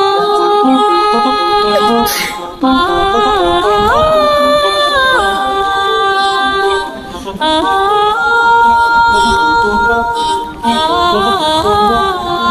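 A woman singing a Chinese-language song, holding long notes that slide from pitch to pitch, with short breaks between phrases.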